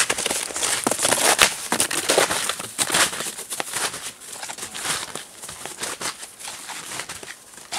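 Footsteps crunching in snow, an irregular run of crunches that grows fainter after about three and a half seconds.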